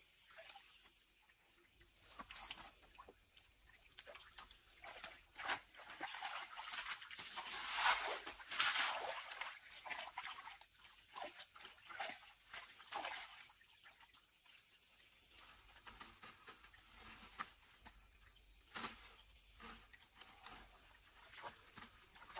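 Insects trilling in a steady high-pitched band that pauses briefly every couple of seconds, with scattered clicks and rustling noises, loudest about eight seconds in.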